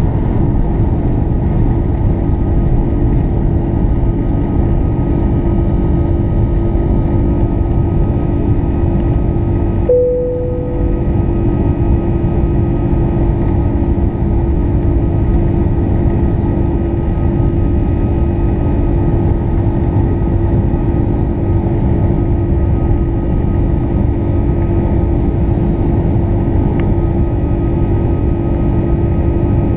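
Airbus A340-600's Rolls-Royce Trent 500 turbofans at climb power, heard in the cabin from a window seat over the wing during liftoff and initial climb. The engine noise is loud and steady, with a constant hum. About ten seconds in, a single short tone sounds and fades quickly.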